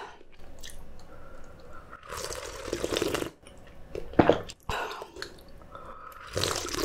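A person eating noodles and kimchi close to the microphone: wet chewing with crunches, and one longer wet slurp lasting about a second, a couple of seconds in.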